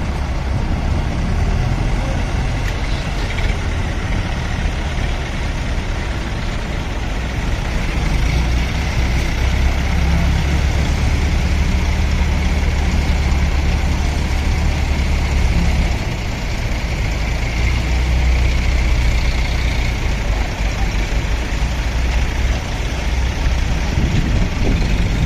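Heavy diesel engine running continuously at working speed, pulling harder through the middle stretch, easing off briefly about two-thirds of the way through, then picking up again.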